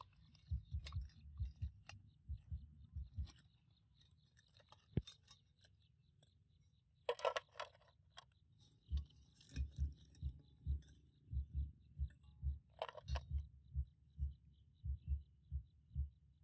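Raw blue crabs being handled and set down: their shells scrape and clack against a steel pot and a plastic plate, in two short bursts and a few clicks, over a string of low, irregular thumps.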